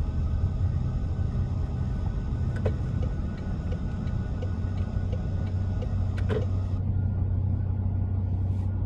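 Car cabin noise in slow city traffic: a steady low engine and road rumble, with tyre hiss that fades as the car comes to a stop about seven seconds in. A soft regular tick, a little faster than once a second, sounds for a few seconds in the middle.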